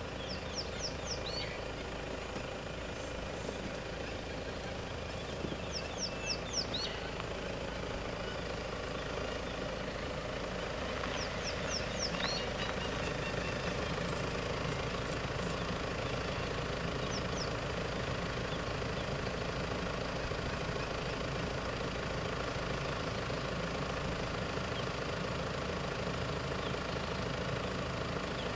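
A vehicle's engine idling steadily. A bird calls a few times over it, each time a quick run of three or four high, falling notes.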